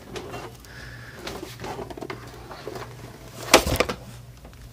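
Handling noise as the camera and a Belkin UPS are moved about: soft rubbing, then a short cluster of knocks and clatter about three and a half seconds in, over a steady low hum.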